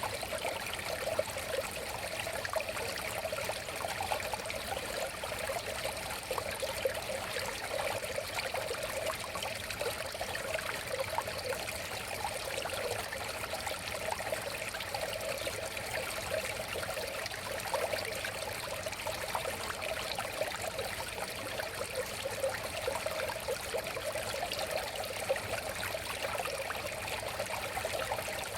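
River water flowing and babbling steadily over rocks, with small splashes and gurgles throughout.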